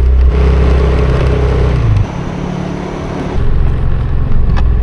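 Motor scooter riding, its engine running, with heavy low rumble on the microphone. The sound drops about two seconds in and picks up again over a second later.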